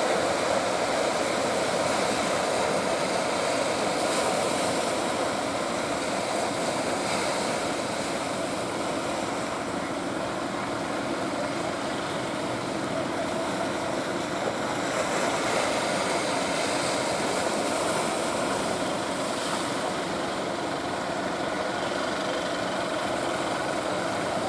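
Fishing-boat engines running, a continuous steady drone over the rush of rough water.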